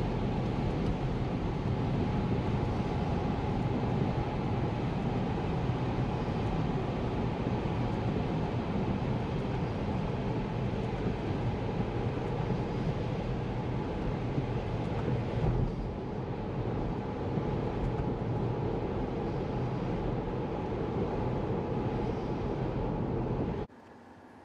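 Steady road and tyre noise of a Tesla driving on a wet road, heard from inside the cabin. It cuts in and out abruptly, starting just before and stopping near the end.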